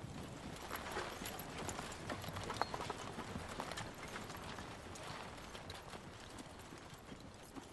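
Footsteps of many people crunching and shuffling over snowy, frozen ground, with irregular clicks and knocks, louder in the first few seconds and easing off toward the end.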